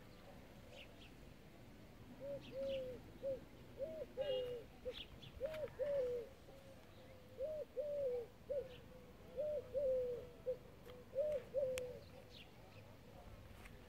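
A dove cooing: a low three-note phrase repeated six times at an even pace, starting about two seconds in and stopping near the end.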